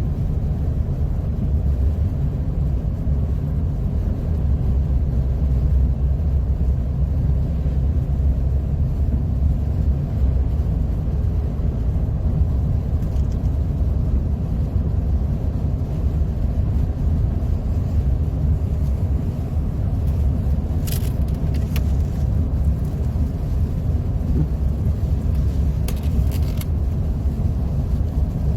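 Steady low rumble of a car driving, heard inside the cabin: engine and tyres running on a wet, slushy road. A few light clicks come twice near the end.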